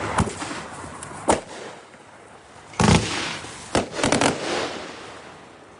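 Consumer fireworks going off: a series of sharp bangs at uneven intervals, the loudest about three seconds in and a quick cluster of reports just after, each trailing off in a short rumbling decay.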